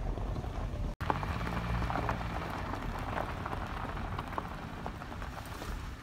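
A steady crackle of small stones under slowly rolling car tyres on a gravel road, over a low rumble.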